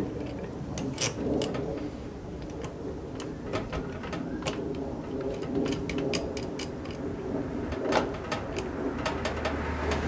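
Irregular light metallic clicks and taps of a wrench working the cable clamp on a car battery terminal, tightening the reconnected battery cable.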